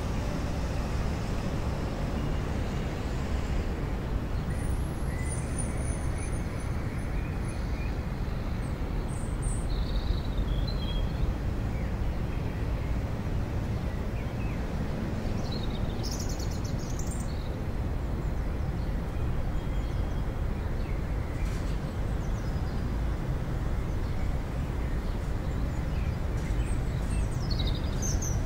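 Outdoor park ambience: a steady low rumble, with a few faint high bird chirps now and then.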